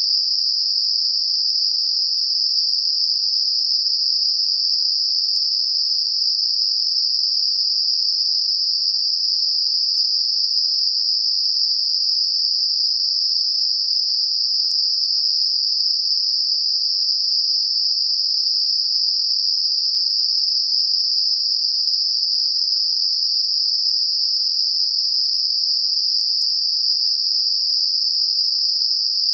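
Synthetic Gaussian narrow-band noise centred on 5 kHz, a tinnitus masker: a steady, high-pitched hiss held in a narrow band without change.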